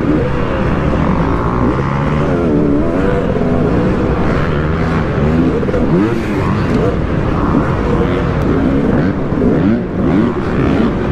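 Dirt bike engine ridden hard round an arenacross track, heard close up from the rider's helmet, its pitch rising and falling over and over with throttle and gear changes. Other bikes' engines overlap it.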